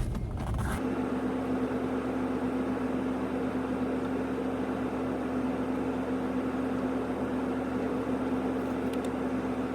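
Tractor engine idling, a steady unchanging hum that starts abruptly about a second in.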